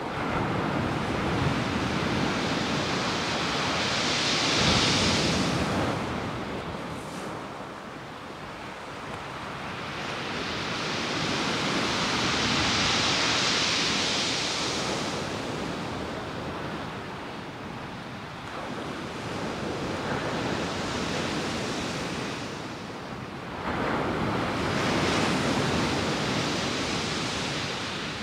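Rough sea surf breaking and washing on a shingle beach, rising and falling in long surges several seconds apart, with wind on the microphone.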